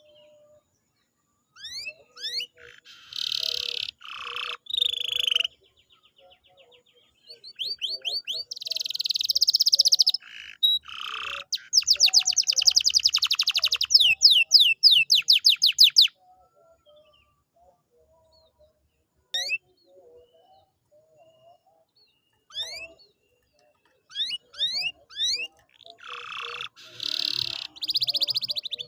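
Domestic canary singing: phrases of quick rising whistles and buzzy notes, with a fast rattling trill in the middle. The song stops for several seconds and then starts again near the end.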